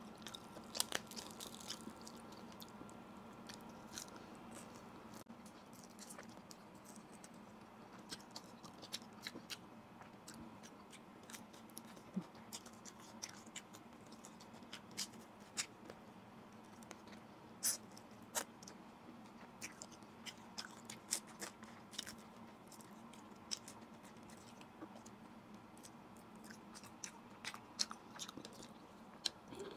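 Close-miked eating of grilled fish: sparse, soft chewing with scattered mouth clicks and smacks, over a faint steady hum.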